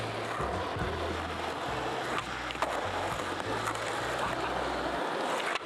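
Skateboard wheels rolling on asphalt, a steady rush with a few light clicks, under a music track's bass line that stops about five seconds in.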